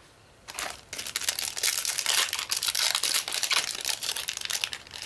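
Foil Yu-Gi-Oh booster pack wrapper crinkling as it is handled and torn open: a dense run of crackles and small clicks starting about half a second in.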